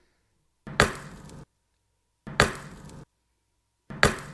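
A sharp knock or chop-like impact, played three times about a second and a half apart. Each hit is followed by a short rough tail that cuts off suddenly, like the same sound clip repeated.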